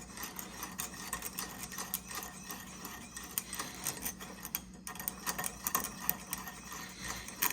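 Watchmaker's saw in use, its small grinding disc bevelling the edge of rivet stock, with rapid irregular clicking and rasping from the mechanism and the metal, broken off briefly about five seconds in.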